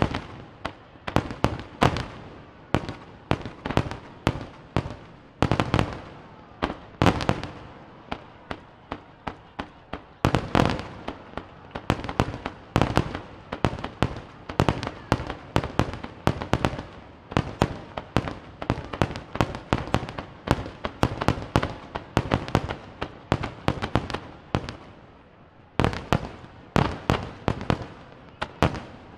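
Aerial firework shells bursting in rapid succession: a dense barrage of sharp bangs, several a second, with a short lull near the end followed by a last cluster of bangs.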